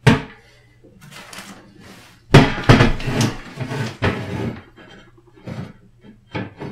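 Clattering and knocking of small metal mounting hardware being handled at a wall bracket: a sharp click at the start, a louder stretch of rattling about two and a half seconds in, and a few short knocks near the end.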